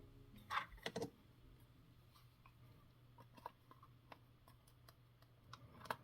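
Faint clicks and taps, as from small hard-plastic parts being handled: three close together about half a second to a second in, then a few scattered soft ticks over a quiet background.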